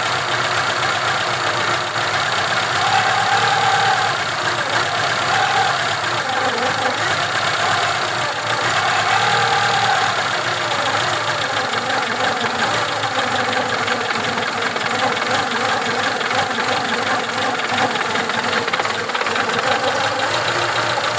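ZAZ-1102 Tavria's four-cylinder petrol engine idling steadily.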